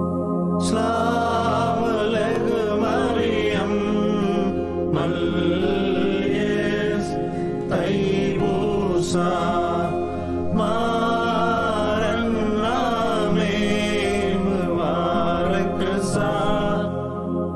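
A group of men singing a slow, chant-like melody together over a steady, sustained drone accompaniment.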